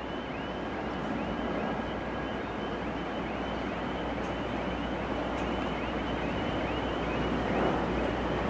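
Korail 311000-series electric commuter train running slowly on the tracks: a steady rumble with wind on the microphone, growing slightly louder. A high chirp repeats about twice a second.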